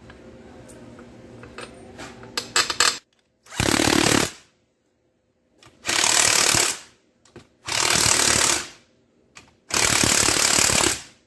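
Cordless impact driver hammering in the bolts that hold the tail housing on a Tremec TR3550 transmission: four bursts of about a second each, with short pauses between. Light handling clicks come before the first burst.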